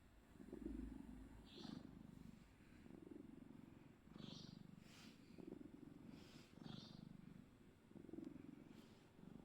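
Domestic cat purring softly, the low purr swelling and easing in pulses about once a second with its breaths in and out, with a faint breathy hiss at some of the breaths.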